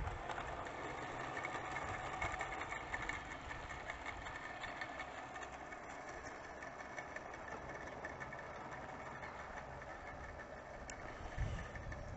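16mm-scale garden railway locomotive running along the track, hauling skip wagons; a steady mechanical hum with small clicks.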